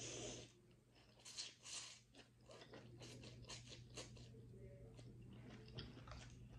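Pho rice noodles slurped in a brief rush of air right at the start, then soft wet chewing with scattered mouth clicks and smacks.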